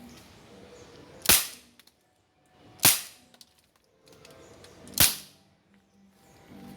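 Beretta PX4 Storm pellet air pistol firing three single shots, each a sharp crack, spaced about two seconds apart.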